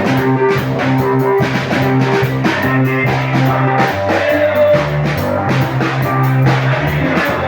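Praise music with a steady drum beat and a held bass line that shifts to a lower note about four seconds in.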